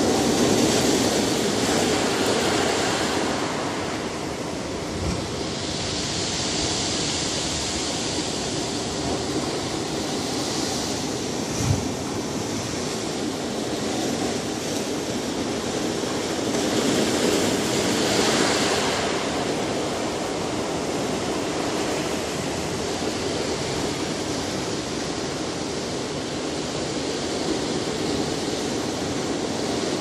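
Ocean surf: a continuous rush of waves breaking and washing up the shore, swelling and easing as each set comes in. A single short thump stands out about twelve seconds in.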